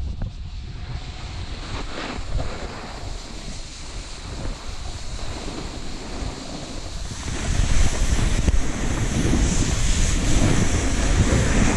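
Wind buffeting a helmet-mounted GoPro microphone during a downhill run, with the steady hiss and scrape of sliding over packed snow; it grows louder and harsher a little past halfway through.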